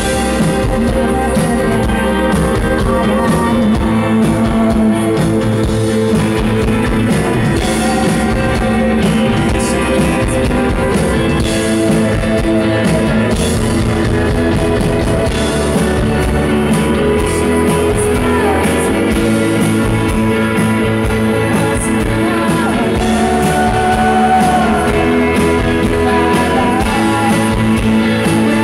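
Rock band playing live on electric guitars, bass guitar, keyboard and drum kit, with a woman singing.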